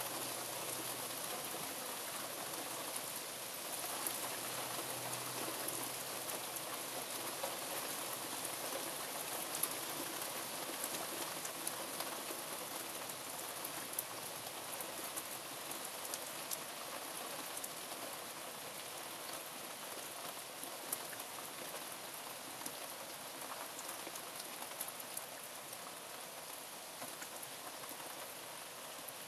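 Steady heavy rain falling on garden leaves and lawn, an even hiss peppered with sharp ticks of individual drops. It eases slightly over the stretch.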